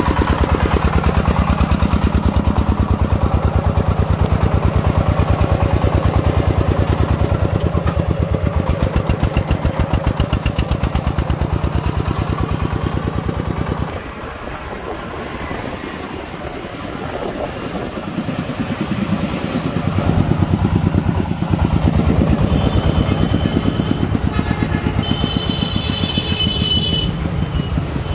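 Single-cylinder diesel engine of a công nông three-wheeled farm truck loaded with sand, running under way with a rapid, even chugging beat. About halfway through it drops back, heard from further off, then grows louder again. A brief high-pitched tone sounds near the end.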